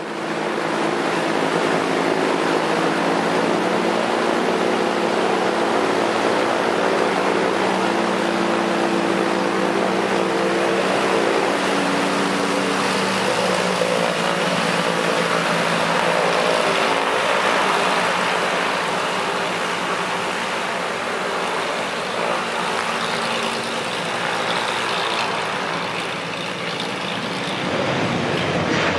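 Airbus A318-121 airliner's CFM56 jet engines on final approach, a steady whine whose tones drop in pitch as it passes about halfway through. Near the end the noise swells again as the aircraft touches down and rolls along the runway.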